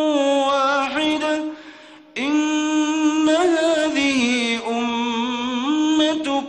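Quran recitation in a melodic tajweed style: one voice holding long drawn-out notes with ornamented turns in pitch. The voice drops away for a breath about two seconds in, then comes back on a new long held note.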